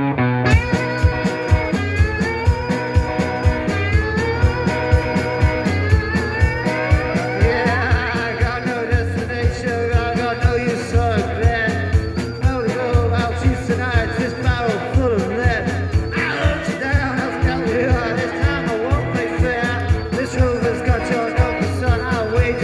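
Rock band playing an instrumental passage live: electric guitar over a steady drum beat.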